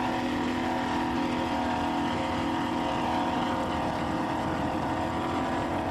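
Powerboat engine running at a steady speed, a constant drone that holds one pitch.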